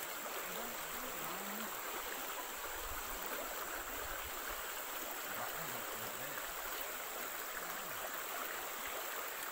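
Shallow stream running over a gravel and rock bed: a steady rush of rippling water.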